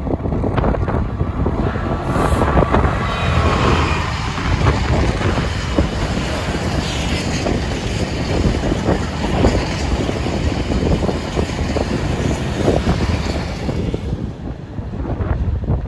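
Freight train passing close by: a DB Cargo Class 66 diesel locomotive followed by a long train of iron-ore box wagons, their wheels rumbling and knocking on the rails. The noise eases about two seconds before the end as the last wagons go by.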